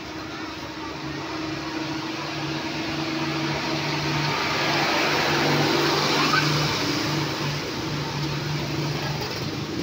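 Hot cooking oil bubbling in a wok, a continuous sizzling hiss that swells toward the middle and eases again, over a low steady hum.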